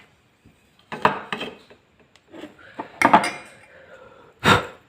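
Metal parts of a dismantled Roots wind-tone horn clinking and clattering as they are handled and fitted back together: a few knocks about a second in, a cluster with a short metallic ring around three seconds in, and a single sharper knock near the end.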